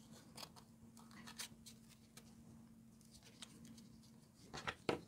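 Faint rustling and a few light clicks from hands threading a faux-suede ribbon through a cardstock gift tag, a little louder near the end, over a faint steady hum.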